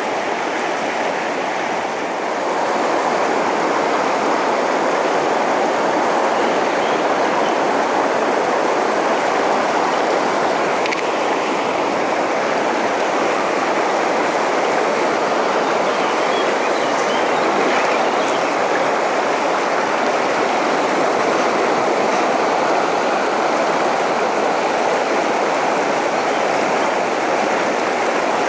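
Steady rushing water of a fast mountain river running over rapids, a little louder from about two seconds in.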